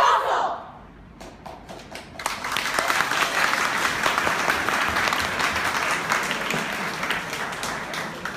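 Voices stop within the first half second, and from about two seconds in an audience applauds, the clapping easing off slightly near the end.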